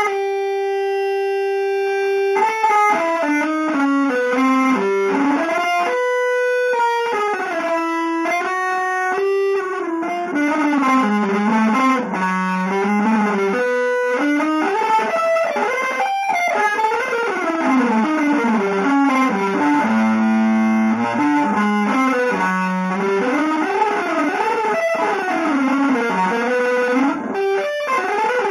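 Electric guitar playing a jazz-style line: a note held for about two seconds, then fast runs of single notes moving up and down, with a low note held briefly about twenty seconds in.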